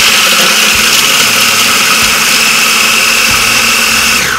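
Small food processor's motor running at full speed with a steady high whine, then switched off and spinning down, its pitch falling, just before the end.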